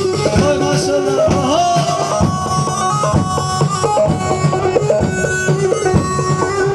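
Live Turkish wedding-band music for a halay line dance: a reedy, zurna-like melody with bending ornaments over a steady drum beat.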